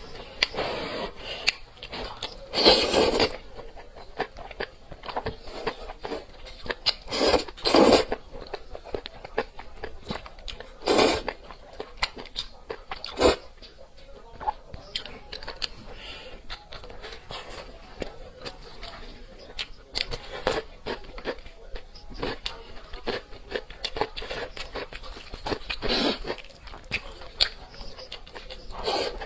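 Close-miked eating: chewing and crunching mouth sounds, with several louder bites or slurps spread through.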